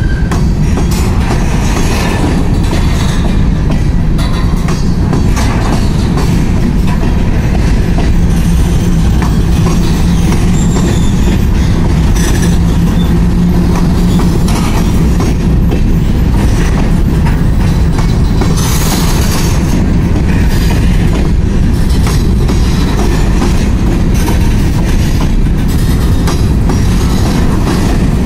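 Freight train of covered hopper cars rolling past at a grade crossing: a loud, steady rumble and clatter of steel wheels on the rails.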